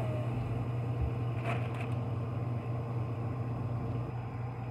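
Kitchen faucet running water into a metal bowl of green beans as they are rinsed by hand, over a steady low hum. A brief knock about a second and a half in.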